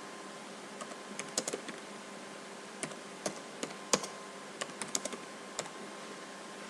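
Computer keyboard keys clicking as short words are typed: scattered keystrokes, some single and some in quick little runs, over a faint steady hum.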